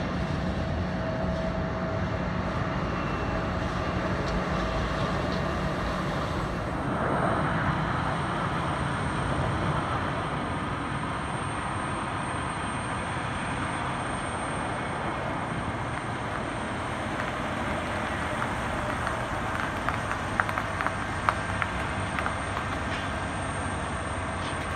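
Steady rumble of jet aircraft engines and airport apron noise, with a shift in the sound about seven seconds in and a few light clicks near the end.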